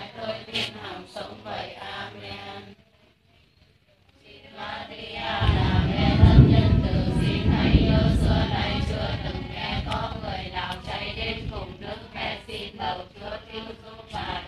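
A group of women reciting prayers aloud in unison, in a sing-song chant. The voices drop out for about a second and a half about three seconds in, then resume. A low rumble under the voices is loudest around the middle and then fades.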